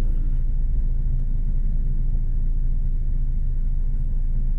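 BMW engine idling steadily, a low even rumble heard from inside the cabin.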